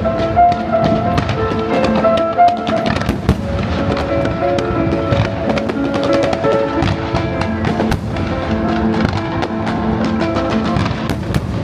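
Fireworks going off in quick succession, many sharp bangs and crackles, over the fireworks show's loud music soundtrack.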